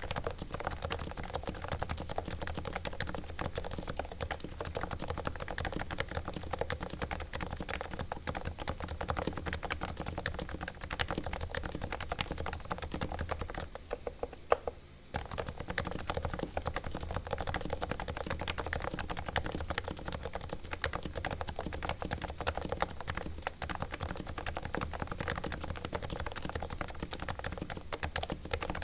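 Realforce R2 TKL silent Topre keyboard with variable-weight keys being typed on quickly and continuously. Its sliders and springs are lubed with Krytox, its stabilizers are lubed, and the case is damped with Thinsulate. About halfway through there is a brief pause with one sharper click.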